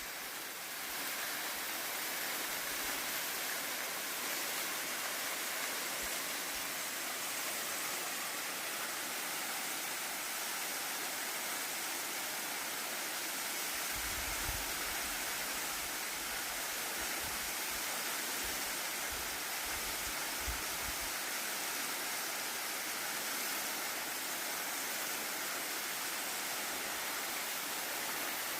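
Waterfall and its stream rushing steadily, a dense even hiss of falling water. Some low rumbles come and go a little past the middle.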